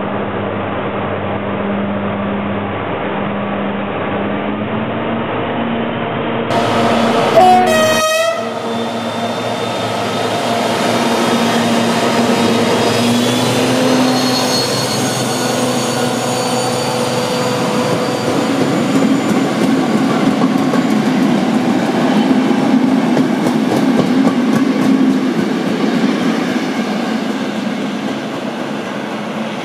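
DR class 118 (V 180) diesel-hydraulic locomotive 118 552-9 running as it pulls a passenger train out, with a short horn blast about seven seconds in. The engine note then rises as it accelerates, and the coach wheels clatter over the rails as the train passes and draws away.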